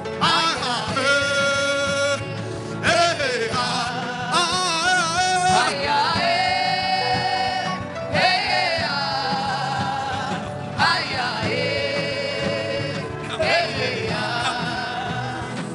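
Gospel worship music: a wordless singing voice holding long notes with vibrato and sliding between pitches, in phrases of a few seconds separated by short breaths.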